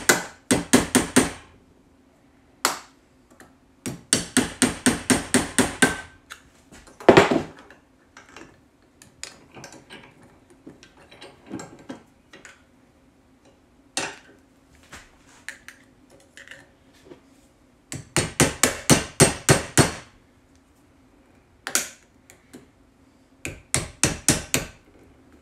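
Rapid light hammer taps on the end of a screwdriver, driving its tip into the edge of a metal combination padlock. The taps come in short runs of about five a second with pauses between, one heavier blow about seven seconds in, and faint clicks and scrapes of the tip working the lock in the gaps.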